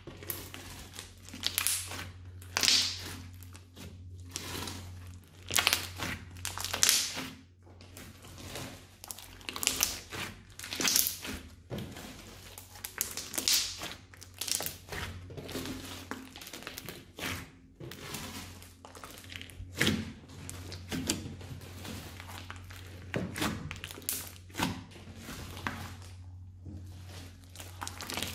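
Hands kneading and stretching a large mass of mixed slime studded with foam beads: irregular wet squishing, crackling and popping, in bursts every second or so. A faint steady low hum runs underneath.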